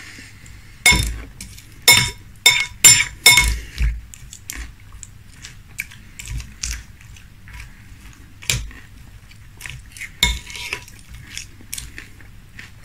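Metal spoon clinking and scraping against a glass bowl while stirring frosted corn flakes in milk. There is a quick run of about six ringing clinks in the first few seconds, then lighter scraping, and two more clinks later.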